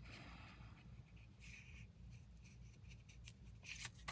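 Faint paper rustling as a printed paper receipt is handled and slid over graph paper, with a brief crinkle about a second and a half in and a few quick rustles near the end.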